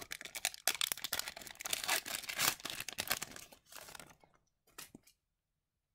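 Paper-and-foil rustling and crinkling of a hockey card pack and its cards being handled, a dense run of small crackles and clicks that stops about four seconds in.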